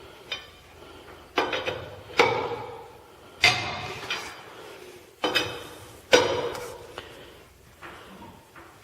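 Tire iron clanking against the lug nuts of a 1949 Chevy's rear wheel as they are tightened down: about six sharp metallic clanks, each ringing briefly, spaced roughly a second apart.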